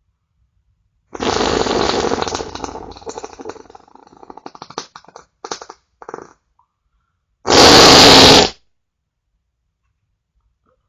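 Fart sounds: a long fart begins about a second in and breaks up into sputtering spurts that trail off. A short, louder fart follows near the end.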